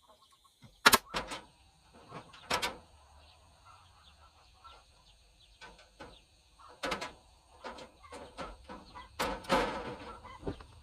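Hand work on hardware cloth stretched over a wooden chicken-run frame: a few sharp, irregular clacks with smaller metallic rattles between them.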